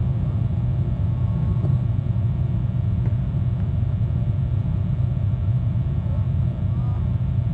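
Steady low rumble with no clear breaks, picked up by an outdoor microphone, with a few faint short glides above it.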